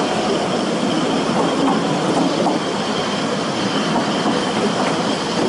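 Ffestiniog Railway narrow-gauge train running on the rails: a steady noise of wheels on track, with a few short, faint wheel squeals.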